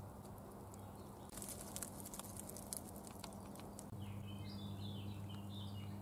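Quiet rural ambience: scattered light ticks and crackles, then faint bird chirps starting about four seconds in, over a low steady hum.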